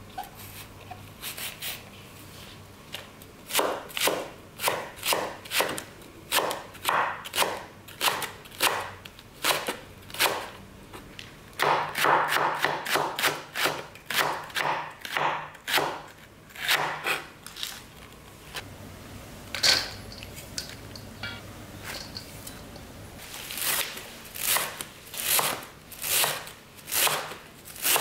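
Chef's knife chopping green onion stalks on a wooden cutting board. The knife knocks on the board about twice a second, quickens into a fast run of chops partway through, pauses briefly with a single sharp click, then resumes its regular strokes near the end.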